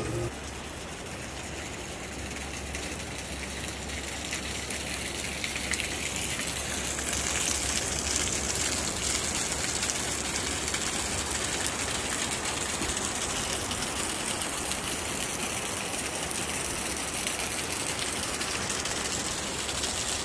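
A small stream of water pouring out of the face of a coastal bluff and splashing onto the rock below, a steady rushing that grows louder a few seconds in.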